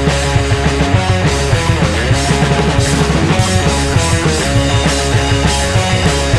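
Recorded music: a loud, dense band track with a steady driving beat. A pitch sweeps down and back up about two seconds in.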